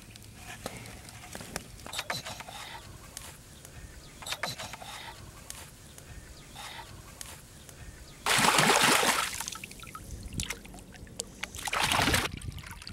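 Hands splashing and churning shallow muddy water. There are two loud bursts about a second each, one a little past the middle and one near the end.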